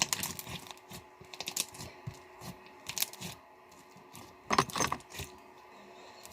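Slime being squished and pressed in the hands, giving quick clicking and crackling pops in irregular clusters, the loudest about four and a half seconds in.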